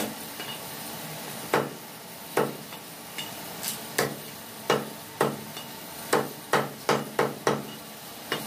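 Heavy cleaver chopping a whole chicken into pieces on a wooden log chopping block: about a dozen sharp knocks, spaced out at first, then a quick run of about three chops a second from around six seconds in.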